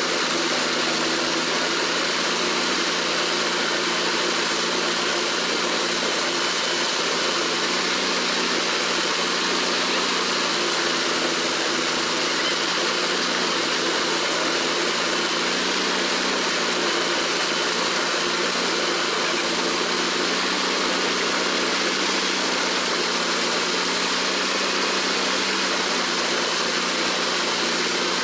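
Tractor-driven maize thresher running: the tractor engine and the threshing machine make a steady, unbroken mechanical drone as cobs are fed in.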